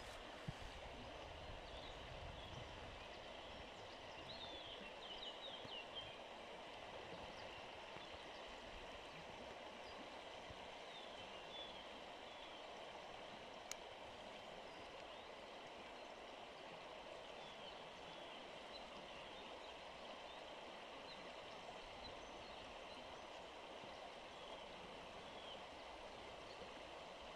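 Faint, steady rush of flowing river water over stones. There are a few faint high chirps about four to six seconds in, and a single sharp click just before the middle.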